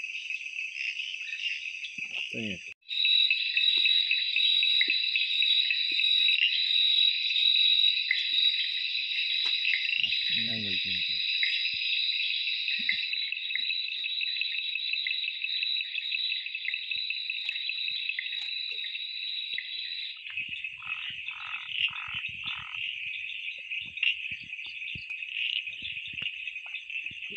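Dense night chorus of frogs and insects, a steady high shrill trilling that breaks off briefly at a cut about three seconds in. Near the end comes a short run of four lower pulsed calls.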